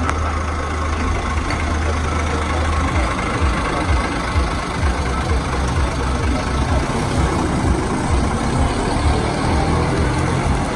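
Engine of a 1966-built bonnet bus running as the bus pulls across the forecourt, passes and drives away, with a low rumble throughout.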